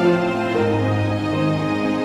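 Background music: calm, slow instrumental tune with held notes over a steady bass.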